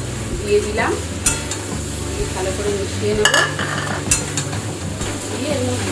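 Vegetables and fish pieces sizzling in a metal kadai while a spatula stirs and scrapes through them, with a few sharp clicks of the spatula against the pan.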